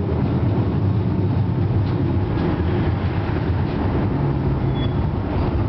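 FVV CSM-4 articulated tram running, heard from inside the passenger car: a steady low rumble and hum with a few faint clicks.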